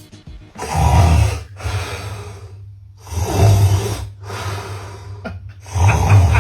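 A man snoring loudly: three long, rough snores about two and a half seconds apart, each with a deep rumble.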